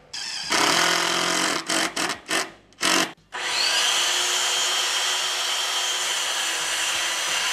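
Cordless drill running into the trap's 2x4 lumber: a first run of about a second and a half, a few short bursts, then one long steady run from about three seconds in.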